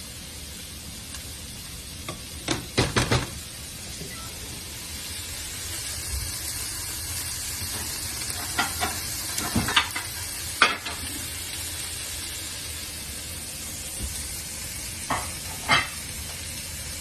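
Pieces of chicken breast sizzling as they fry in a pan. A utensil clicks and scrapes against the pan in short clusters: a few seconds in, again around the middle, and near the end.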